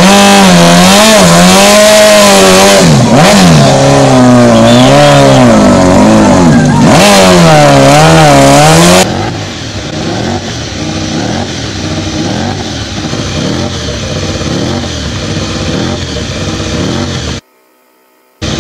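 A sportbike engine revved hard over and over, very loud, its pitch swinging up and down. Then a MotoGP racing bike, the Avintia team's Ducati Desmosedici, is revved on its stands in short repeated blips, quieter. Its sound drops out for about a second near the end and then returns.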